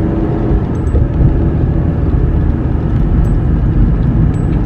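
Steady low road and engine rumble of a moving car, heard inside the cabin.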